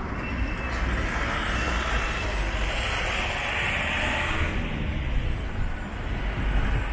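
Street traffic: a steady rumble of cars, with one vehicle passing close, swelling and fading again around the middle.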